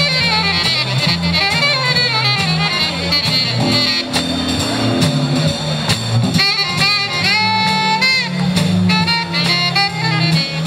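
Live jazz with an alto saxophone leading: quick runs of notes, then a long held note bent up into place about two-thirds of the way through. A steady bass line and an archtop guitar play underneath.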